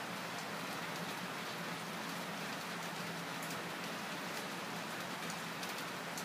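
Steady background hiss with a faint low hum and scattered light ticks.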